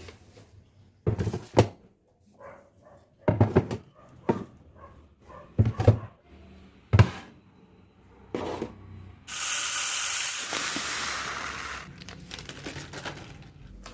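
Kitchen storage containers knocked and set down several times, a second or so apart, followed about two-thirds of the way in by a steady hiss lasting about three seconds.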